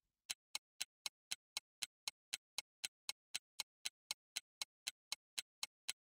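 Clock-like ticking sound effect, short even ticks about four a second, counting off a pause for the viewer to work the problem.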